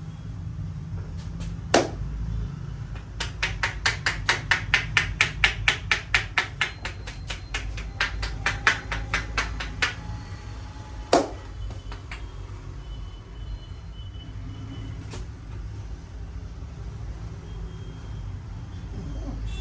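Hands striking in a rapid chopping or tapping massage, about six sharp slaps a second for some seven seconds. A few single sharp cracks come before and after the run.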